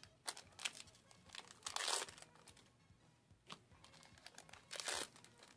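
Foil trading-card booster pack wrappers crinkling and tearing in several short bursts. The longest and loudest burst comes about two seconds in.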